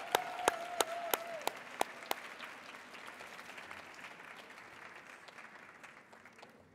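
Audience applause that dies away gradually, with a few sharp, loud claps close to the microphone in the first two seconds and a held wavering call over it in the first second and a half.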